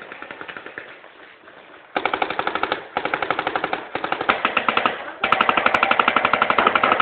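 Paintball markers firing rapid strings of shots, about ten a second. Faint firing in the first second is followed by four louder bursts from about two seconds in, the last and longest lasting about two seconds.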